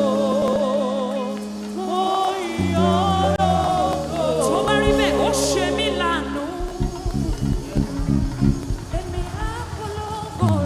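Live gospel worship music: a singer holds long notes with vibrato over sustained keyboard and bass chords. Percussion comes in about two-thirds of the way through.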